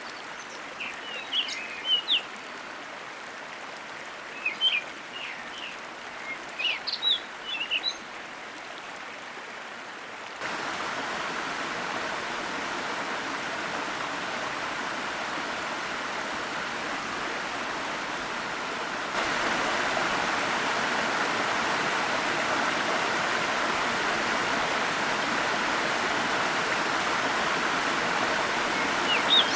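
Steady rush of a forest waterfall, with small birds chirping in short quick phrases over it during the first eight seconds and once more at the very end. The water jumps louder twice, suddenly, about ten and nineteen seconds in.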